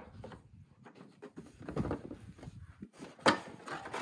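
Hard plastic body panels of a Honda ATV rubbing and knocking under hands as they are worked on, with a sharp clack a little over three seconds in.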